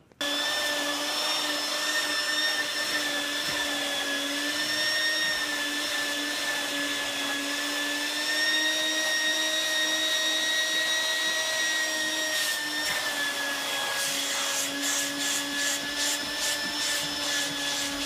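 Vacuum cleaner running steadily with a whining motor tone, its nozzle worked over cloth car-seat upholstery. In the last few seconds, quick rhythmic scrubbing strokes, two or three a second, come over the whine.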